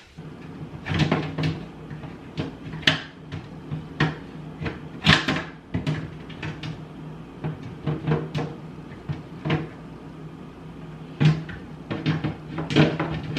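Irregular knocks and clatters of kitchen cupboard doors and things being handled, about twenty in all, some louder than others, over a steady low hum.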